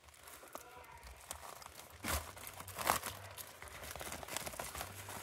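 Plastic shrink wrap on a trading-card box being picked at and peeled: soft crinkling, with two louder crackles about two and three seconds in.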